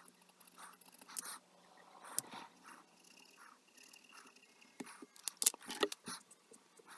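Copic alcohol marker scratching on paper in short strokes, with a quick run of sharp clicks and taps between about five and six seconds in.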